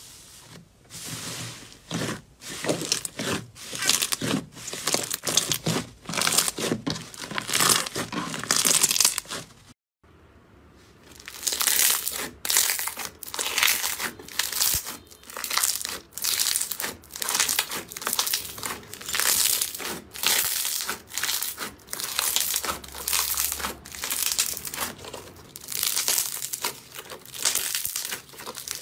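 Slime being squeezed and pressed by hand, giving repeated crackling, squelching bursts. There is a short break about ten seconds in, after which the squeezes come at about one a second.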